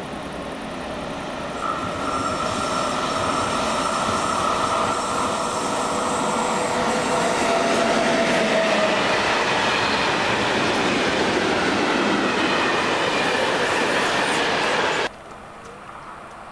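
ÖBB class 1044 electric locomotive and its train passing close by: loud, steady rail and wheel noise with a steady whine over it. It cuts off abruptly near the end.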